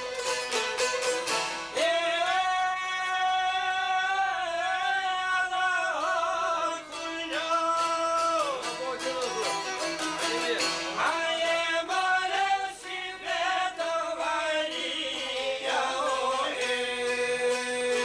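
Albanian folk song: a man sings long, wavering held notes over plucked long-necked lutes (çifteli) and a violin. Fast plucking opens it, and the voice comes in about two seconds in and drops out near the end.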